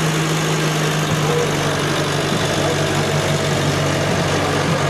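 A motor vehicle's engine idling with a steady, low hum.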